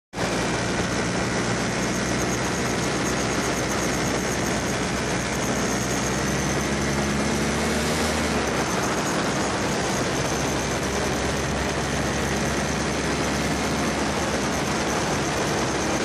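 Paramotor engine running over a steady hiss, its pitch rising slightly and then dropping abruptly about eight seconds in.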